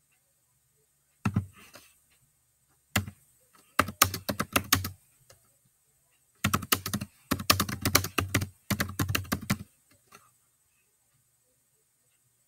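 Typing on a keyboard: about six short bursts of quick key clicks with pauses between them.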